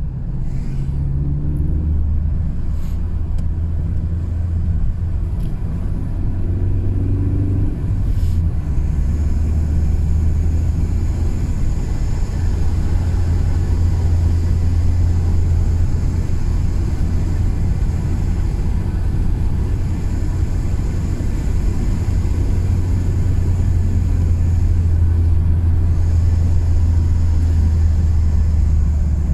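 BMW E36 driving, engine and road noise picked up by a dashcam inside the car: a steady low drone. A few short rises in engine pitch and some brief knocks come in the first eight seconds.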